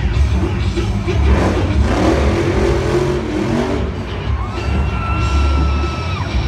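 Max D monster truck's supercharged V8 engine revving hard in surges as the truck drives and stands up on its rear wheels, over a crowd and arena music.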